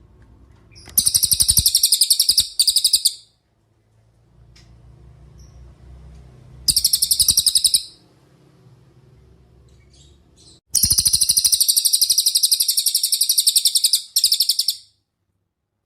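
Cililin songbird singing: three bouts of a fast, high-pitched trill. The first and last bouts are longer and each breaks off briefly near its end, while the middle one is short.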